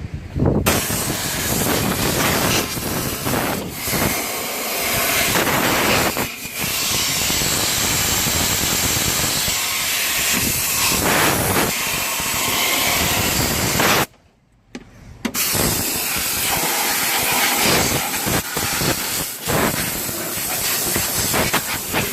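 Compressed-air blow gun hissing in long blasts, blowing leaf and compost debris out from around the wiring harnesses under the windscreen. It stops about 14 seconds in and starts again a second later.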